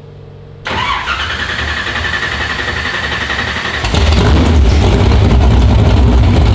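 A first-generation Chevrolet Camaro with open headers being started. After a faint hum from the fuel pump priming, the starter cranks with a whine for about three seconds. The engine then fires just before four seconds in and runs louder, unmuffled through the open headers.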